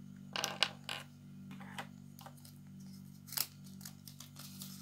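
Plastic Kinder Surprise toy capsule and its small plastic toy parts being handled, giving a few sharp clicks and rattles over a steady low hum.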